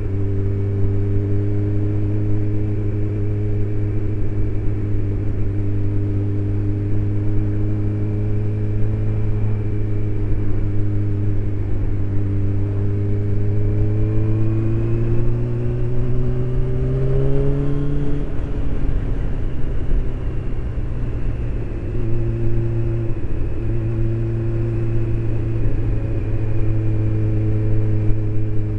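Honda CBR600's inline-four engine running at a steady cruising pitch, heard from the rider's helmet. The pitch climbs slowly as the bike accelerates, drops sharply about two-thirds of the way through, then settles back to a steady pitch.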